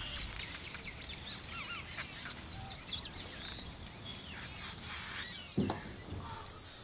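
Birds chirping over and over in short, quick calls. A single sharp knock about five and a half seconds in, and a high hiss swells near the end.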